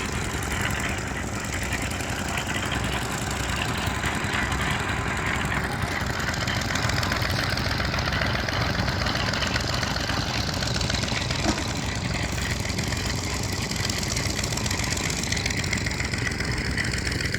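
A vehicle engine running steadily: a constant, unbroken drone.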